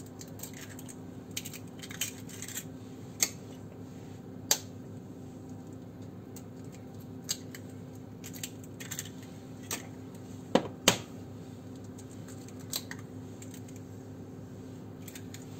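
Eggs being cracked on the rim of a glass bowl: scattered sharp taps and clicks of eggshell on glass, the loudest a close pair about ten seconds in, over a steady low hum.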